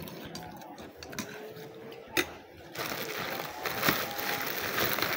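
A metal spoon clicks against a plate a few times, then from about three seconds in a plastic bag of krupuk crackers is handled, crinkling and rustling steadily.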